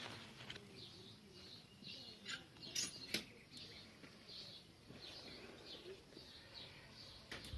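Small birds chirping faintly, many short irregular calls, with a few sharp clicks about two to three seconds in.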